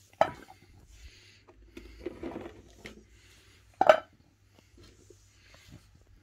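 Stainless steel dog bowl clinking and knocking as soft food pellets are dropped into it and the bowl is handled on the carpet, with two louder clanks, one just after the start and one about four seconds in.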